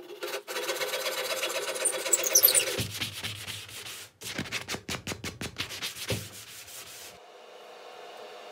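Hand-tool work on wood: a flush-cut saw trimming a dowel peg, then a run of quick rubbing strokes on the pine frame. It fades to a faint steady hiss near the end.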